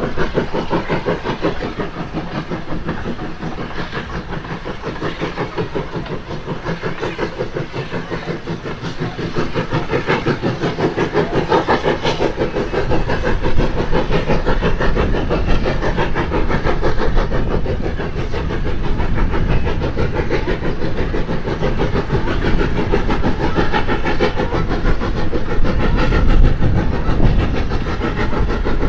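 Hunslet saddle tank steam locomotive hauling a passenger train, its exhaust beating in a rapid, even rhythm. The beats grow louder as the engine draws nearer.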